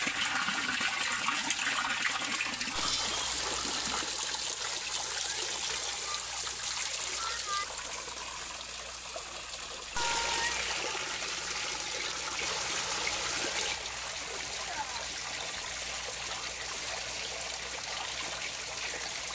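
Running water trickling and splashing in a steady rush. The sound cuts abruptly a few times, getting quieter about eight seconds in and louder again about two seconds later.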